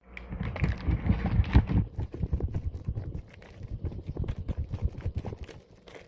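Mozzarella being grated by hand: quick, repeated strokes of the cheese against the grater, with knocks from the grater.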